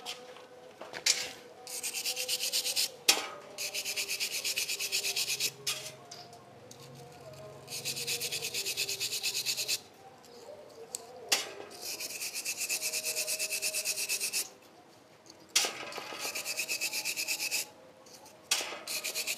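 Rapid back-and-forth hand scrubbing of a carbon-fouled motorcycle engine part: runs of quick, even rubbing strokes, several a second, each run lasting one to three seconds with short pauses and a sharp knock or two between them.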